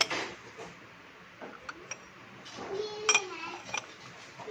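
Glass lids on amber glass bowls clinking as they are handled, with a few light clinks and one louder clink about three seconds in that rings briefly.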